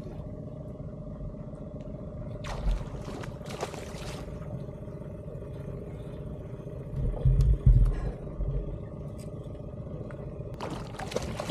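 Outboard motor running steadily on a small boat. A stretch of rushing noise comes from about two to four seconds in, and a few low thumps near the middle.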